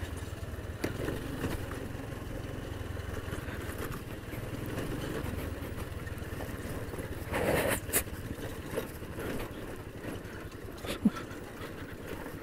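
Small Honda scooter engine running steadily at low speed on a rough dirt track, a low hum with occasional knocks and rattles from the bumps, the loudest a little past halfway.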